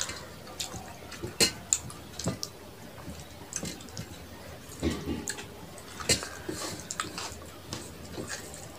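Wet, sticky eating sounds: scattered clicks and smacks of chewing and lip smacking, with fingers pinching mashed vegetable from a small plate and mixing rice and curry on a steel plate.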